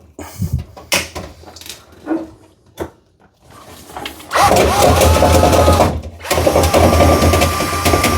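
A few short handling clicks, then about four seconds in a power drill starts spinning a rotary dryer-vent brush on its rods inside the vent duct. It runs steadily, stops briefly near six seconds, and starts again.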